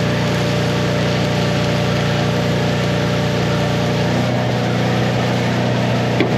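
Engine of a rig-mounted, engine-driven Miller welder running steadily. About four seconds in, its low drone shifts, as if its speed or load changes.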